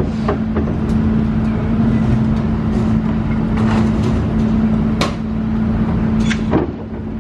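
A steady engine drone with a constant low hum, with several sharp metal knocks and clanks from panels being worked on as a funfair ghost train is dismantled.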